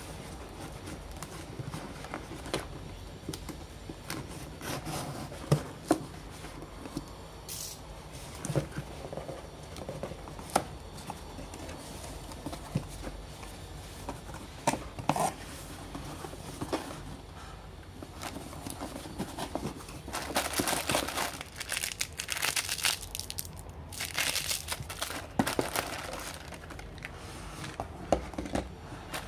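Cardboard shipping box being opened by hand: scattered taps, scrapes and tearing of cardboard and packing tape, then plastic packing wrap crinkling for several seconds about two thirds of the way through as items are pulled out of it.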